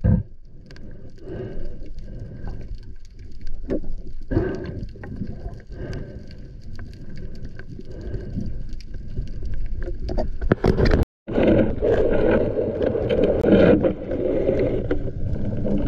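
Underwater sound as picked up by a camera in its waterproof housing: water rushing and rumbling with scattered small clicks and knocks. It cuts out briefly about eleven seconds in and comes back as a louder steady rush.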